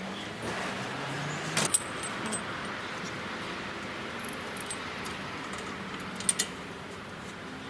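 Light metallic clinks and taps of metal parts or tools, sharpest about a second and a half in and again about six seconds in, over a steady background noise.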